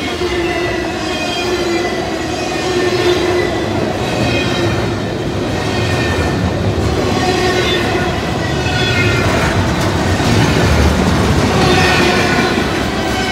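Intermodal freight train cars loaded with trailers and containers rolling past at speed: a steady loud rumble and clatter of steel wheels on the rails, with wheel squeal coming and going.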